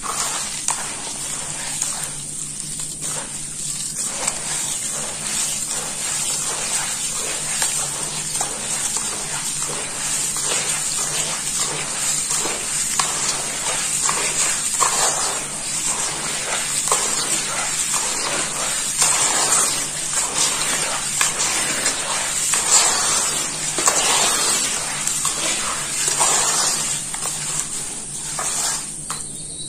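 Hands kneading and squeezing red dirt mixed with water in a basin: wet, gritty squelching and squishing in quick irregular strokes as the soil turns into runny mud.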